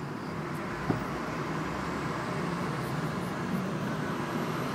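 Steady hum of car and traffic noise heard from inside a car's cabin, with a single short knock about a second in.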